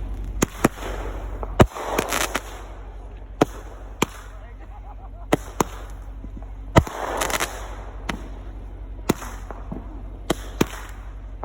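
Fireworks going off close by: about fifteen sharp bangs at uneven intervals, several followed by about a second of crackling. A steady low hum runs underneath.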